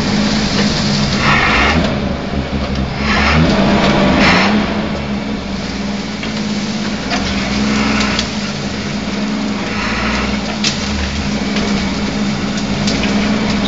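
A 4x4's engine running steadily as the vehicle drives over a rough off-road track, with a constant rumble and scattered knocks and rattles from the bouncing vehicle.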